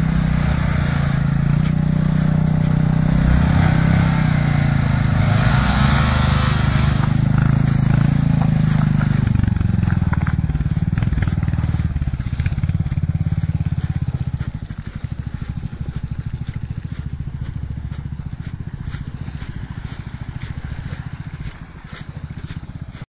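Motorcycle engine running as the bike pulls away and rides slowly on. About two-thirds of the way through it gets quieter and settles into steady, lower running.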